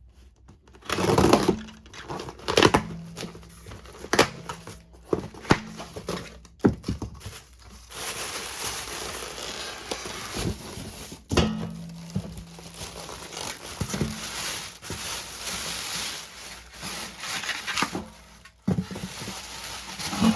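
Packaging being handled and torn open: crinkling, rustling plastic and cardboard, with several sharp knocks in the first half and steadier crackling afterwards.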